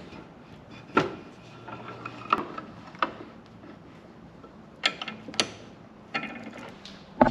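Bench vise being tightened on an aluminium engine case cushioned by a towel: a series of separate metallic clicks and knocks, about seven spread across several seconds, from the vise handle and the case settling in the jaws.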